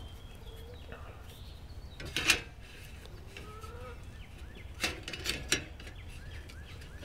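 Aluminium trim pieces knocking against each other and the work surface as they are handled: one sharp clank about two seconds in, then a quick group of three near the middle.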